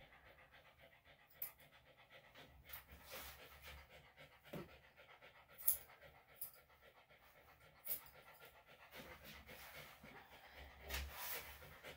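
Senior Bichon/Shih-Tzu dog panting faintly and steadily, the panting of a dog that gets warm and nervous during grooming. A few short sharp clicks sound over it.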